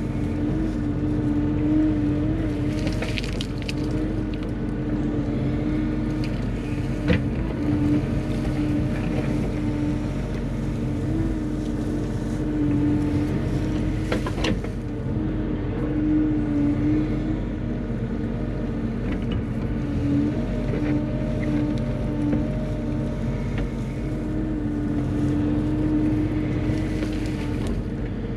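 Bobcat E35 mini excavator's diesel engine running steadily as the machine works dirt, with a few sharp knocks about 3, 7 and 14 seconds in.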